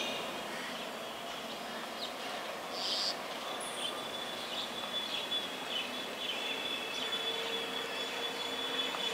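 Steady outdoor background noise with scattered faint bird chirps; a thin, steady high tone comes in about three and a half seconds in.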